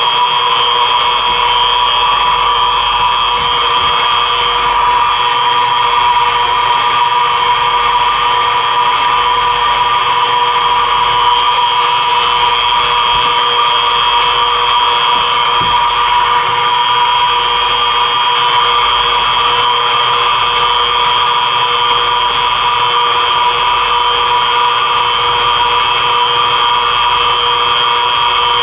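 Mini mill running at about 800 rpm with a steady, multi-toned whine from its spindle drive, as a 3/8-inch end mill plunges into and slots a quarter inch deep, full width, through Delrin plastic. The plastic cuts easily, so the machine's whine holds even without labouring.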